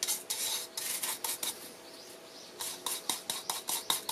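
Quick, even rubbing strokes on a wooden bowl as thinned black urushi lacquer is worked into the wood for the first sealing coat (kiji-gatame). There are about four to five strokes a second, with a pause of about a second midway.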